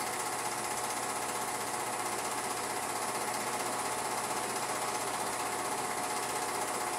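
Film projector running: a continuous mechanical whir with a steady tone, unchanged throughout.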